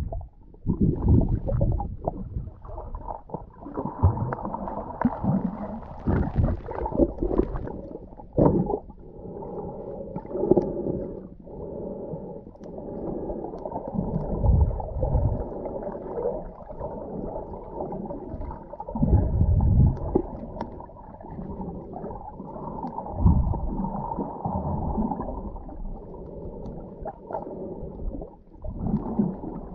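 Muffled underwater water noise: dull rumbling surges and gurgles of water moving around a submerged camera's microphone, coming in uneven swells every few seconds.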